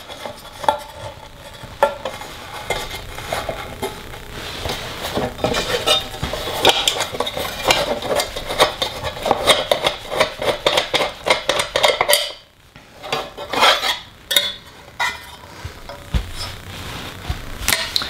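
Aluminium pedal cover and its steel pivot hardware being handled and worked off: irregular light metallic clinks, scrapes and rattles, briefly quieter about twelve seconds in.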